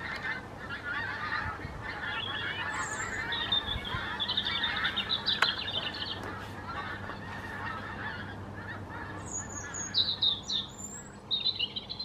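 A large flock of geese honking in flight overhead, many birds calling at once in a steady chatter, with louder, higher calls about four seconds in and again near the end.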